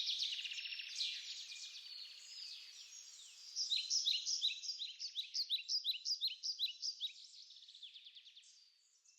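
Small birds chirping and singing, many quick downward-sweeping notes overlapping one another. About three and a half seconds in, a run of rapid repeated chirps, several a second, takes over, and the birdsong fades away near the end.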